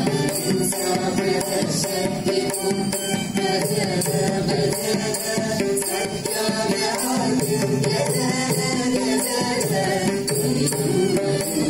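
Devotional bhajan sung by a group of voices to mridangam drumming, with a violin accompanying the melody.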